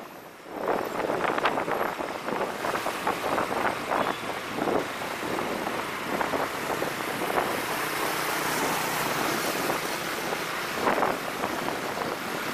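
Wind buffeting the microphone of a moving motorbike, over engine and road noise. The rush dips briefly right at the start, then runs on in uneven gusts.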